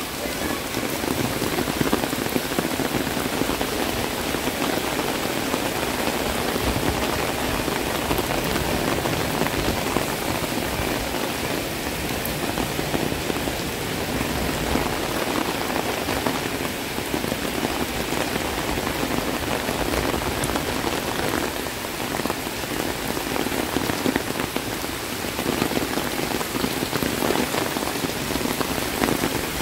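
Heavy rain falling steadily and splashing on surfaces, an even hiss without a break.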